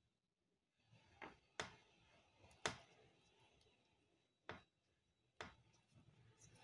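Faint handling sounds of a soft rubber eartip being worked onto the threaded metal eartube of a Littmann stethoscope: about five sharp, irregularly spaced clicks with light rubbing between them.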